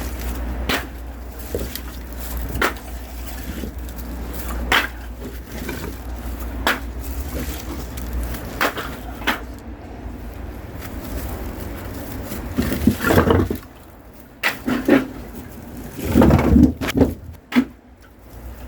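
Split firewood logs being tossed down one at a time, wood knocking on wood about every two seconds over a steady low hum. From about two-thirds of the way in come heavier thumps and scraping as the wood is shifted.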